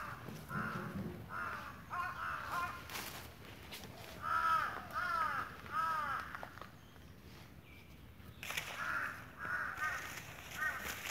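Crows cawing over and over: a run of caws near the start, three louder ones in the middle, and another run near the end.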